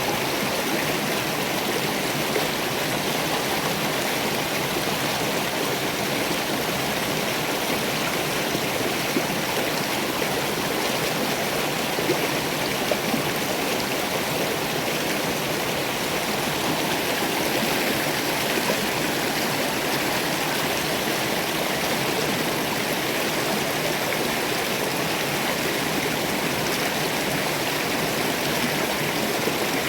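River water rushing steadily over rocks, a constant even noise.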